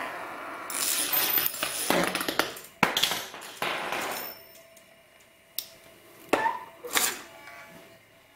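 Home-made metal spinning top clattering and rattling against a glass mirror surface for about four seconds as it wobbles, then a few separate sharp clicks.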